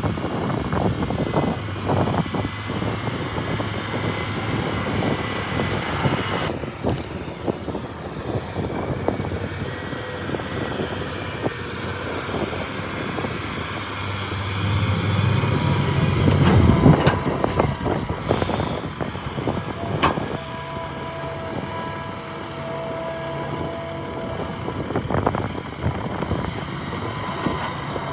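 Heavy earthmoving excavator at work: a diesel engine running under load with irregular clanking and rattling throughout, the engine swelling louder about two-thirds of the way through. A steady whine comes in later.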